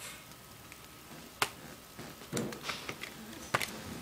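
Two sharp clicks, about two seconds apart, with a short soft rustle between them, over quiet room tone.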